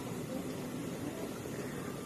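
Steady background hiss of room tone; no voice or crying is heard.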